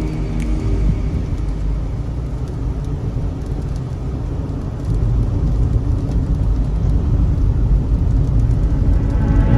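Car driving in heavy rain: a steady low rumble of road, tyre and rain noise, getting louder about five seconds in.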